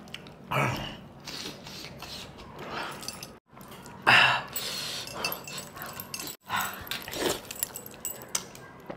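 A man eating curry and rice with his fingers, making three short, loud, wordless vocal sounds of enjoyment between quieter mouth and eating noises.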